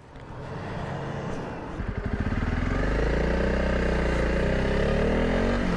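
Honda CRF300 Rally's single-cylinder engine pulling away and accelerating, its pitch rising and growing louder over the first few seconds, then running steadily.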